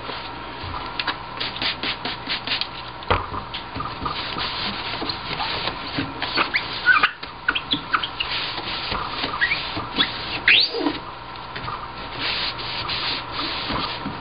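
A folded paper towel rubbing back and forth across the glass lid of a wooden Cornell insect drawer, wiping it clean: a run of quick, uneven scrubbing strokes, with a few short squeaks of paper on glass, the clearest about seven and ten and a half seconds in.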